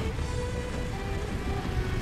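Background music with long held notes that step in pitch, over a steady rushing noise and low rumble of heavy rain.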